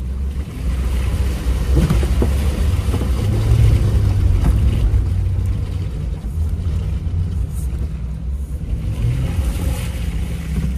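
Off-road vehicle engine running under load as it drives up a mud hill: a steady low rumble that builds over the first second.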